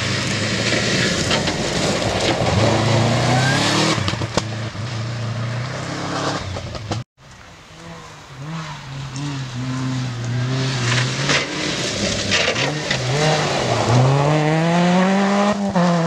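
Subaru Impreza rally car's flat-four engine revving hard through a gravel corner, the pitch rising and falling with the throttle; the sound cuts off abruptly about seven seconds in. A second rally car's engine then comes in, its revs dipping and climbing with gear changes and rising steeply near the end as it draws closer.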